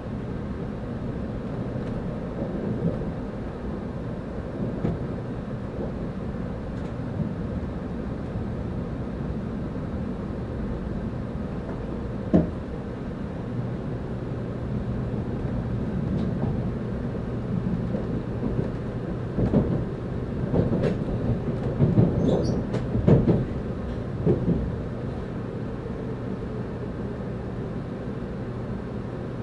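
Cabin running noise of a 700 series Hikari Rail Star shinkansen train: a steady low rumble, heard from inside the car. There is a single sharp knock about twelve seconds in, and a run of knocks and clatters over about five seconds near the end.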